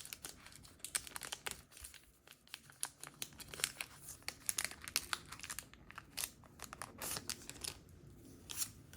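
Pokémon card pack packaging crinkling and tearing as the packs are ripped open and handled, a long run of short, irregular crackles.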